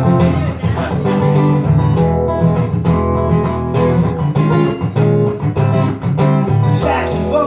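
Acoustic guitar strummed in a steady rhythm: an instrumental passage of a live song with no singing.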